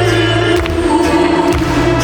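Trot song accompaniment playing: a stepping bass line under sustained held melody notes, with little or no lead vocal.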